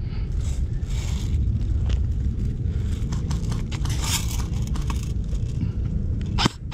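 Steady low wind rumble on an action camera's microphone, with irregular handling and movement noise from an airsoft player and his rifle, and a few sharp clicks near the end.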